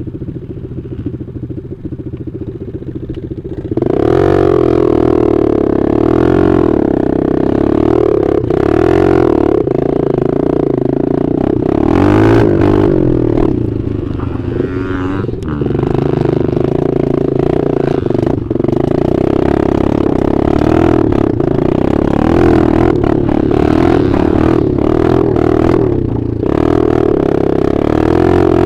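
Dirt bike engine idling, then pulling away about four seconds in and running hard under throttle, its note rising and falling with a few brief dips.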